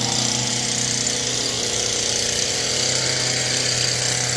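Gas-powered hedge trimmer running steadily.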